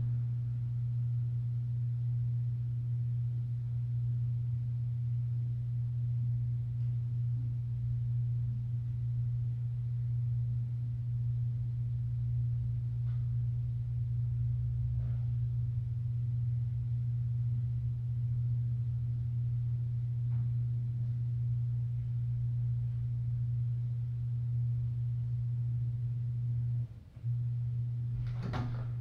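A steady low hum at one unchanging pitch, cutting out for a moment near the end.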